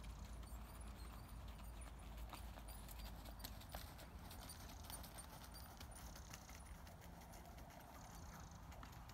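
Faint hoofbeats of a horse trotting on a soft arena surface.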